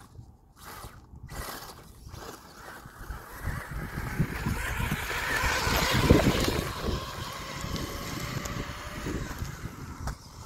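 Brushless RC rock crawler driving over loose quarry rock, stones crunching and clattering under its tyres; it gets louder as it passes close about six seconds in, then fades as it drives away.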